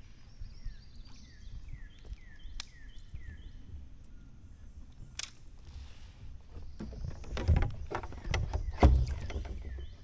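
A bird calling a quick series of short, downward-sliding whistled notes, about three or four a second, in the first few seconds. Later come irregular knocks and clatter from gear being handled on a plastic kayak, loudest near the end.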